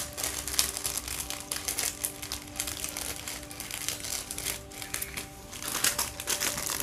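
Clear plastic jewellery packets crinkling as they are handled and pulled about, with a few faint steady music tones underneath.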